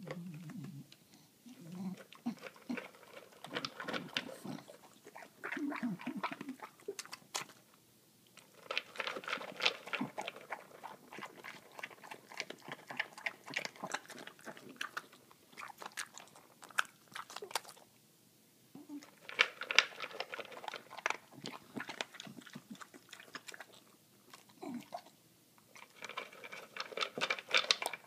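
English bulldog crunching and chewing dry kibble from its bowl, in bouts of rapid crackly crunches broken by brief pauses.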